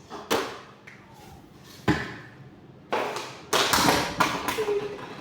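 A series of sharp knocks and thuds from objects being handled: single knocks near the start and about two seconds in, then a quick run of clattering knocks in the second half.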